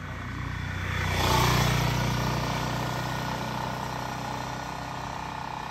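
Motorcycle engine running at low speed. It swells louder about a second and a half in, then eases off.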